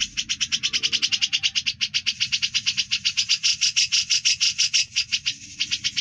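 Grey-cheeked bulbul (cucak jenggot) giving a long, fast rattling song (ngebren) of about ten to twelve rapid notes a second, unbroken, over a faint low hum.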